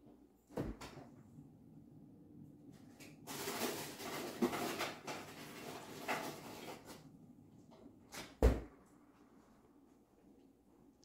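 Kitchen handling noise: a knock just under a second in, a few seconds of rushing, rustling noise, then a sharp knock, the loudest sound, about eight and a half seconds in.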